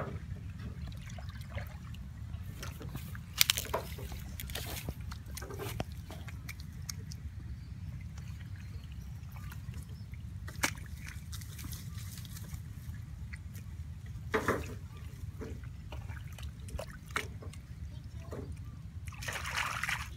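Muddy ditch water trickling through and around a wire-mesh trap, with scattered splashes from hands working in the water. The sharpest splash comes about three and a half seconds in, and a short run of splashing comes near the end.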